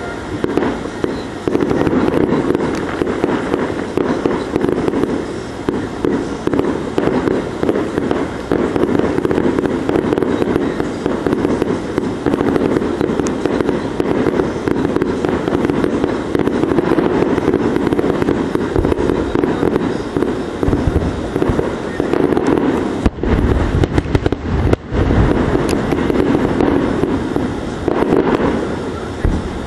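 Fireworks grand finale: a continuous, rapid barrage of aerial shell bursts and crackle, with a few heavier booms late on.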